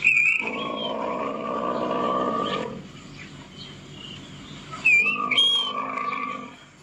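Recorded buffalo calls played through a tablet's speaker: two long low calls, the first right at the start and the second about five seconds in, each opening with short high squeaky tones.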